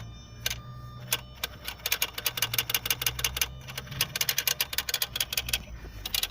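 A Chevrolet Lacetti's throttle flap moving and pump running by themselves once the battery is connected: rapid, irregular clicking over a low steady hum. This is the fault under investigation, one that stops when the boot is opened.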